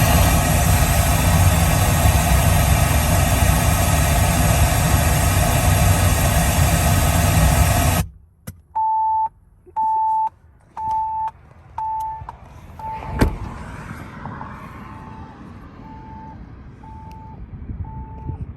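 Pink-noise test track playing loudly through a Ford truck's stereo speakers for the Kicker Key amplifier's automatic microphone tuning, cutting off suddenly about eight seconds in. Then a series of short electronic beeps about once a second, the Kicker Key setup countdown, fainter in the last few seconds, with one sharp click in the middle.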